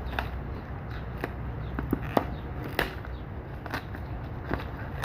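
Plastic wrap being picked at and torn off a packaged box: irregular sharp crinkles and crackles, about ten of them, over a steady low rumble.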